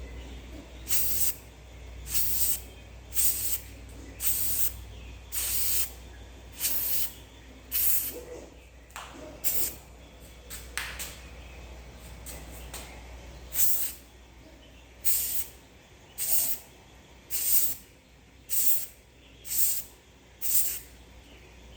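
Aerosol spray paint can sprayed in about fifteen short bursts, each a sharp hiss about half a second long, roughly one a second with a few longer gaps. The paint is going onto a taped-off 3D-printed helmet.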